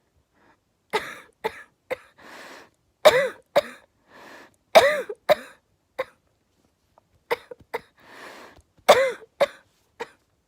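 A girl coughing in repeated fits of two or three sharp coughs, with a noisy in-breath between fits.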